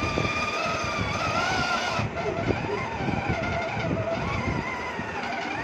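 Battery-powered toy ride-on motorcycle playing its electronic engine-revving sound through its small speaker: a steady, gently wavering tone that shifts about two seconds in, over a low rumble.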